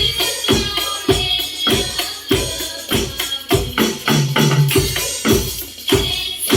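Instrumental music with a steady beat, struck about two and a half times a second.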